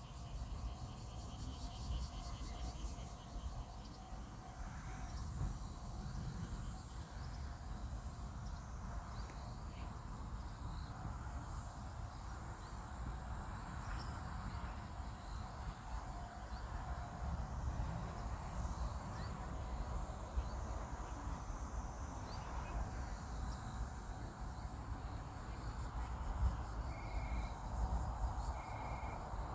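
Faint outdoor background of insects chirring, over a low rumble of wind and distant noise. Near the end there are three short high beeps about a second and a half apart.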